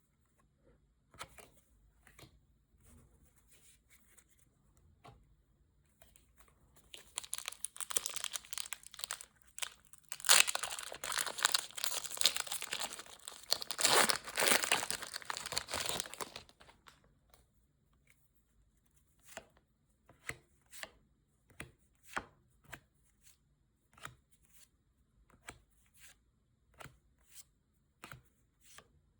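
Pokémon card packaging being torn open, crinkling and ripping for about ten seconds. Then comes a run of short, evenly spaced clicks, roughly one every 0.7 s, as trading cards are handled one after another.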